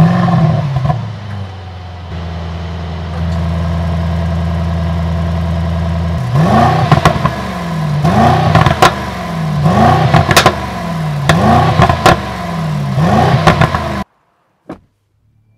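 Mercedes-AMG GLE 63 S's 4.0-litre twin-turbo V8 starting with a flare of revs and settling to a steady idle. From about six seconds in it is revved repeatedly, roughly once a second, with sharp cracks between some of the revs, and the sound cuts off suddenly near the end.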